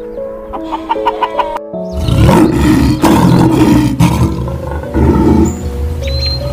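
Light background music with a picked melody, then from about two seconds in a lion roaring, several long rough roars in a row that are much louder than the music.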